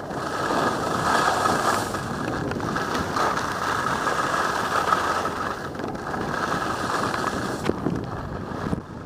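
Skis sliding and scraping over firm, hard-packed snow: a steady, loud rush of edge noise with wind on the microphone. It drops away sharply just before the end.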